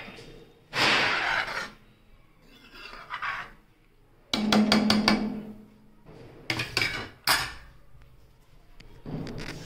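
Steel spoon stirring thick gravy in a metal kadhai, scraping the pan in short bursts and knocking against it, with a few sharp clacks past the middle.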